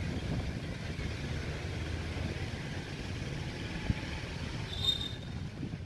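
Steady outdoor background noise, mostly a low rumble, with a brief high chirp about five seconds in.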